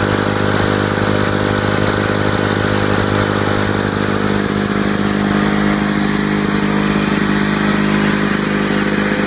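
Restored Lawn-Boy 6255 'Bricktop' 21-inch mower's two-stroke engine running steadily at an even speed.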